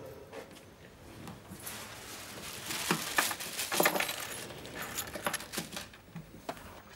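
Light metallic clinks and rattles of small objects being handled on a desk, several quick taps that are loudest about three to four seconds in.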